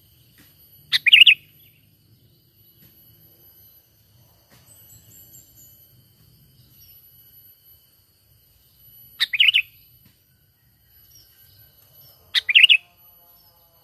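Sooty-headed bulbul (kutilang) giving three short, loud calls: one about a second in and two more in the last five seconds. Faint chirps of other birds can be heard between them.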